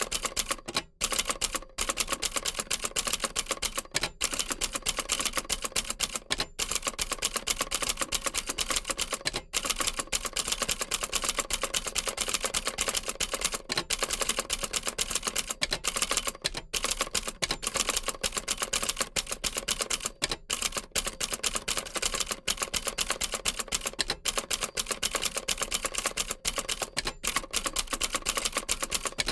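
Old manual typewriter being typed on steadily: a fast, continuous run of key strikes and typebar clacks, with only a few brief pauses.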